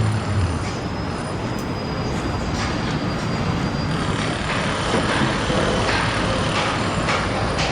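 Heavy machinery running: a steady mechanical din, with repeated clanks and rattles from about halfway through.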